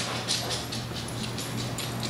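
A dog's footsteps across a wooden floor, faint light ticks and rustles, mostly in the first half-second, over a steady low hum.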